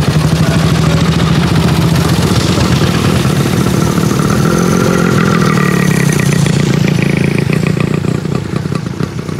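Westland Lysander's Bristol Mercury radial engine running steadily on the ground at low power, with the propeller turning. It eases off and gets somewhat quieter near the end.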